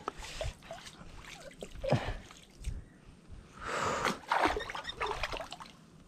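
Water splashing at the surface in several short bursts, the loudest and longest about four seconds in.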